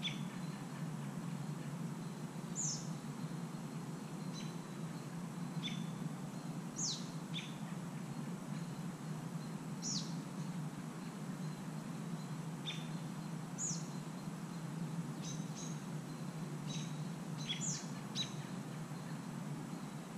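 Scattered short, high bird chirps, each sweeping quickly downward, about a dozen in all, over a steady low hum.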